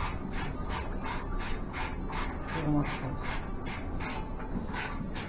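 Ratchet wrench clicking in an even run, about three clicks a second.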